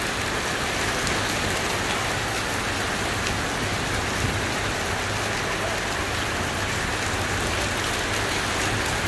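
Heavy rain falling steadily, an even, unbroken hiss of drops on wet ground.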